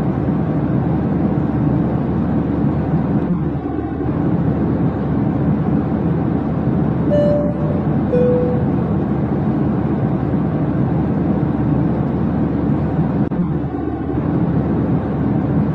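Steady low rumble of airliner engine noise, with two short high tones about seven and eight seconds in.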